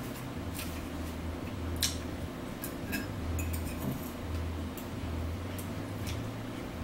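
Forks clinking and scraping against a plate and a salad bowl while eating, a scatter of sharp clinks with the loudest about two seconds in, over a low steady hum.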